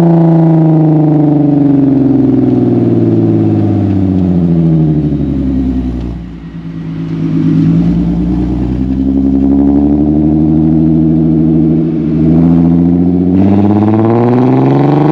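Car exhaust note through a freshly fitted larger muffler on 3-inch pipe, recorded at the tailpipes while driving. The revs fall for about six seconds and the note quietens briefly, then it climbs and holds, and near the end it gets louder and rises again under acceleration.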